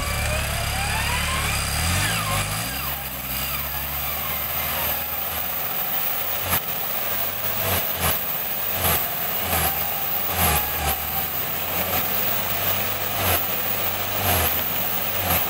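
Engine of a Toyota Land Cruiser 40-series 4x4 running at low revs as it crawls up a muddy slope on its front winch cable. From about five seconds in there is a run of short sharp knocks, roughly one every second.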